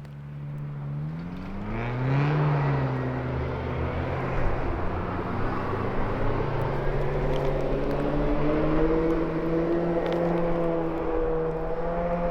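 A motor engine running, rising in pitch and getting louder over the first couple of seconds, then holding a fairly steady, slightly wavering tone.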